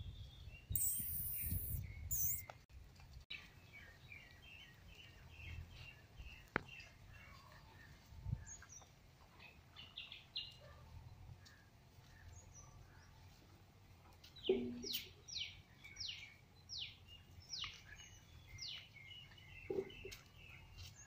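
Small birds chirping, with a run of about seven quick downward-sliding calls in the second half. A brief hissing noise comes about a second in.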